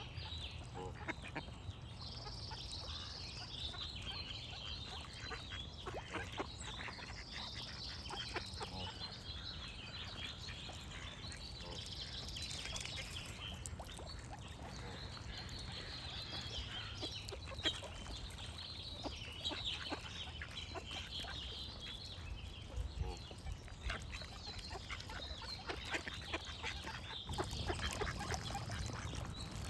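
Ducks quacking and geese honking, with songbirds chirping throughout and a short high trill coming back every few seconds, over a low steady rumble.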